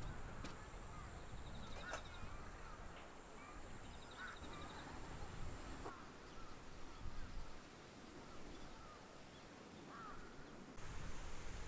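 Faint outdoor ambience with scattered short bird chirps and a few brief runs of rapid ticking.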